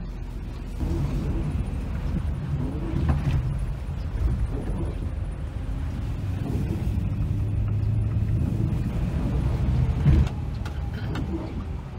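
Tour coach's engine and tyre noise heard inside the cabin: a steady low rumble that grows louder as the coach picks up speed, with a few knocks and one louder thump about ten seconds in.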